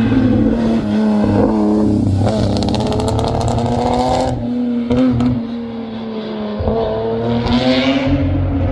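Historic racing car engines running loudly at fairly steady revs, the pitch dipping about six seconds in and rising again near the end, with a run of fine ticks a few seconds in.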